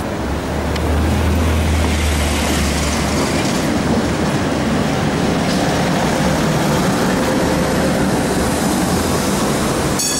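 Tatra T3 tram passing close by on street track, its running gear and wheels rumbling over the rails, with a low hum in the first few seconds. Near the end, a short high-pitched wheel squeal begins as the wheels take the curve.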